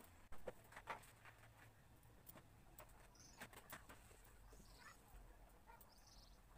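Near silence: faint room tone with a few soft clicks in the first second and two brief, faint high chirps later on.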